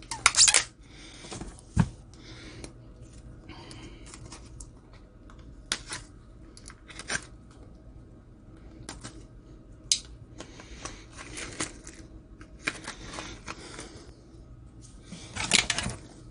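Small cardboard knife boxes being handled and shifted about in a cardboard shipping box packed with foam peanuts: scattered rustles, clicks and taps, with louder rustling near the start and near the end and a dull thump about two seconds in.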